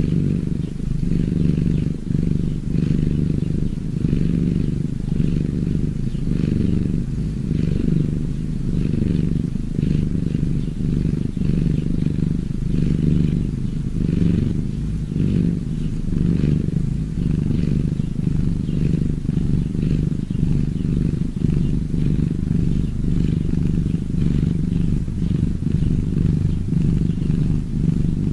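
A domestic cat purring steadily, the low purr swelling and easing in an even rhythm with its breathing.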